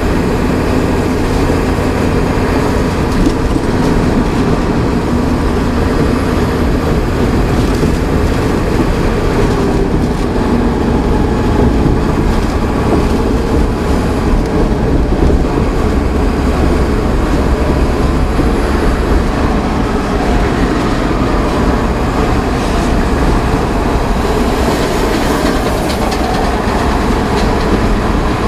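Inside the cab of a VW Worker 15-180 4x4 army truck at highway cruising speed: a steady diesel engine drone mixed with tyre and road rumble and wind noise.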